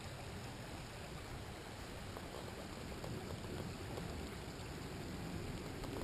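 Faint, steady rush of flowing creek water running over a stony bed.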